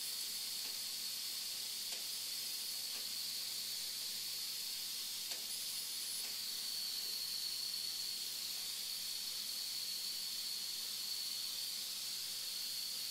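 Steady airflow hiss from a surgical smoke evacuator drawing in air at the laser site, with a faint steady high whine running through it.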